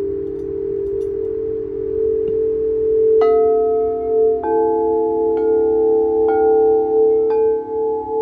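Quartz crystal singing bowls: a steady low humming tone from bowls sung at the rim, joined from about three seconds in by higher bowl tones struck roughly once a second, each ringing on over the hum.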